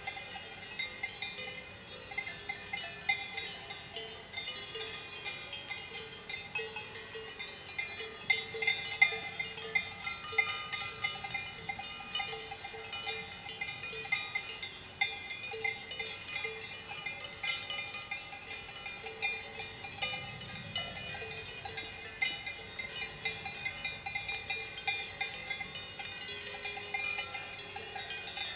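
Swiss cowbells worn by a herd of grazing cows, several bells of different pitches clanging irregularly and overlapping without pause.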